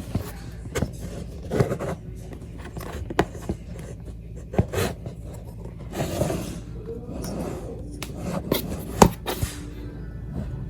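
An action figure's cardboard and plastic retail packaging being opened by hand: scattered clicks, knocks and scrapes, with a couple of longer rustles of packaging.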